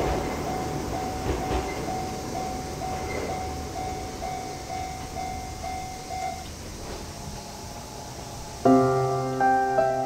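Japanese level-crossing warning bell ringing at about two strikes a second, over the fading rumble of a departing Enoden train; the bell stops about two thirds of the way through. Piano music starts near the end.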